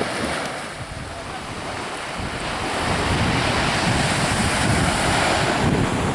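Wind buffeting the microphone over a rushing noise of water, swelling louder from about two seconds in.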